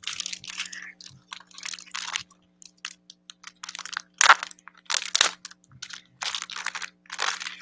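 Plastic packaging crinkling and crackling as it is handled and unwrapped, in irregular bursts, loudest about four and five seconds in.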